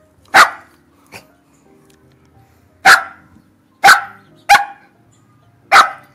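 Shetland sheepdog barking: five sharp, loud barks at uneven intervals, with a fainter short one about a second in.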